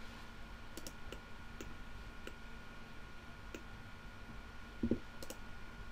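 Faint computer mouse clicks, about half a dozen scattered single clicks, over quiet room tone with a faint steady hum; a soft low thump comes just before five seconds in.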